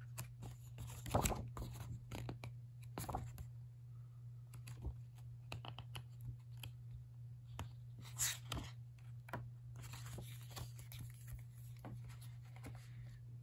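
Pages of a glossy photo booklet being turned and handled by hand: irregular paper rustles and soft clicks, the loudest about a second in and again about eight seconds in. A steady low hum runs underneath.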